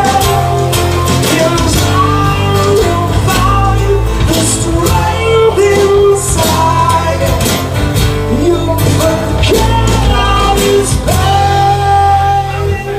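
Live rock band music: guitar over bass and drums, with some vocal, dropping in level near the end.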